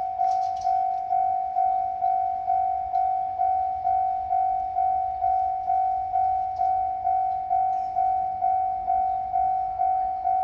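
Japanese railway level-crossing warning bell ringing: one electronic ding repeated about twice a second, each stroke sharp and then fading.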